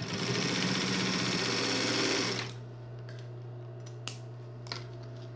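Industrial twin-needle sewing machine stitching fast for about two and a half seconds, then stopping, its motor still humming at rest. A couple of sharp snips follow as scissors cut the threads.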